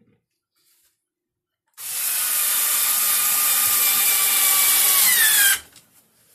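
Cordless drill/driver running into a plywood panel for about four seconds, starting a couple of seconds in; its whine drops in pitch just before it stops.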